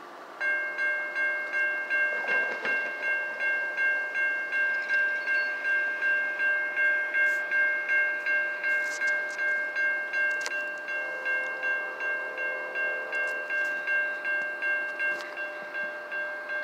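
Railroad crossing warning bell ringing rapidly, about three strikes a second, starting about half a second in: the crossing has activated for an approaching train.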